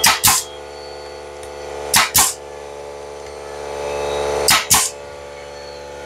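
DeWalt 16-gauge pneumatic finish nailer firing three times, about two seconds apart, each shot a sharp double pop with a burst of air, as nails are driven to fix a wooden side panel. A steady hum runs underneath.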